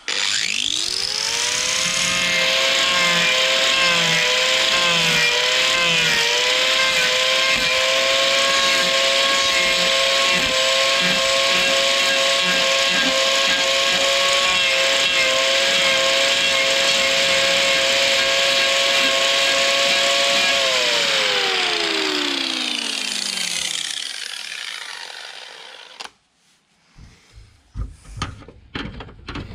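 Electric angle grinder spinning up and cutting into the hard keratin sheath of a freshly removed cow horn, its whine steady with slight dips under load. About twenty seconds in it is switched off and winds down with a falling pitch, followed by a few handling knocks.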